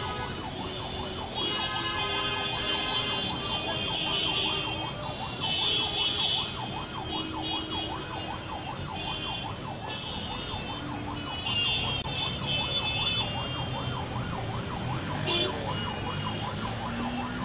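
Emergency vehicle siren warbling rapidly up and down, over a low rumble of traffic.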